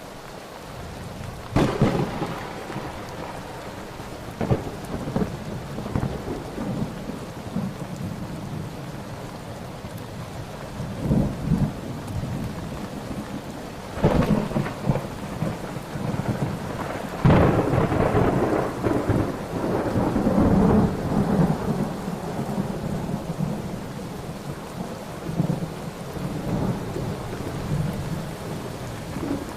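Steady rain with repeated thunder: sharp claps about 2 seconds in, about 14 seconds in and about 17 seconds in, each rolling into a low rumble, with smaller rumbles between.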